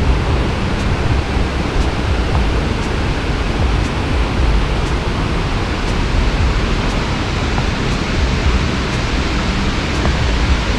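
Waterfall: a steady, loud rush of falling water with no letup.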